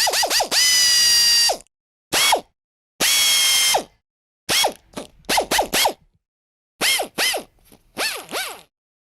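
Small electric power-tool motor, like a cordless drill or driver, trigger-pulsed in quick bursts that sweep up and down in pitch. Twice it is held at a steady high whine for about a second, with short silences between the bursts.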